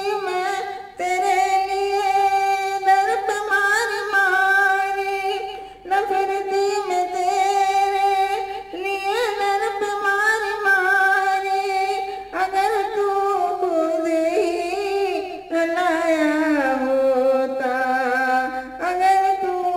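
A woman singing a Hindi Krishna bhajan (devotional song) into a handheld karaoke microphone, in long held notes that slide between pitches, with short breaks between phrases.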